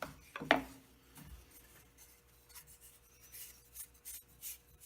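Two light knocks, then faint scattered rubbing and scraping: a wooden hub and its drilling jig being handled and turned.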